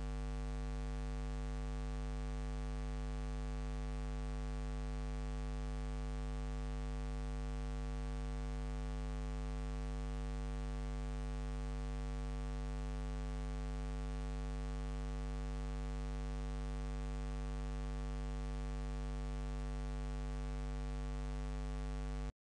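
Steady electrical mains hum with a stack of overtones over a light hiss, unchanging throughout, cutting off suddenly near the end.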